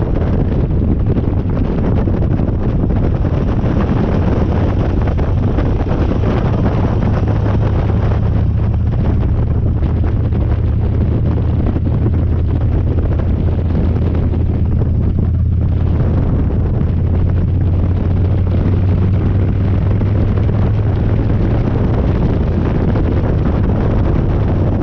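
Harley-Davidson Dyna's V-twin engine running steadily under way, with heavy wind noise on the microphone. The higher part of the sound eases briefly about fifteen seconds in.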